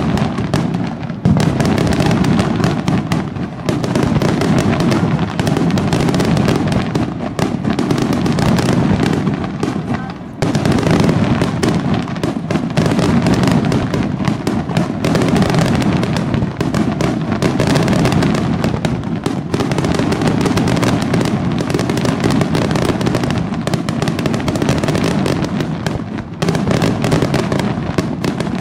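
Aerial fireworks display: a dense, almost continuous barrage of shell bursts and crackle, with brief lulls about a second in, about ten seconds in and near the end.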